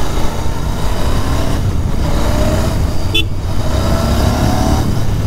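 Royal Enfield Interceptor 650's 648 cc parallel-twin engine running under way, its pitch climbing slowly twice. A short horn beep about three seconds in.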